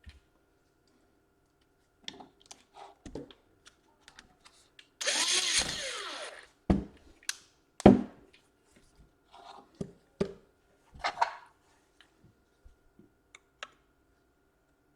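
Scattered small clicks and taps of laptop parts and tools being handled, with a brief noisy whirr lasting about a second and a half about five seconds in.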